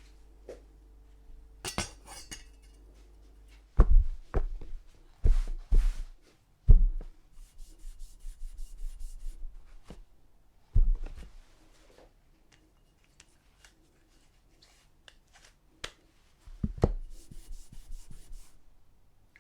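A kitchen knife knocking sharply on a hard surface several times, with stretches of fine scraping between the knocks. The loudest knocks come in a cluster about four to seven seconds in and again near the end.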